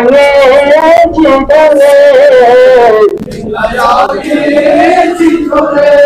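Men's voices chanting a nauha, a Shia mourning lament, in long held sung lines, with a short break about three seconds in.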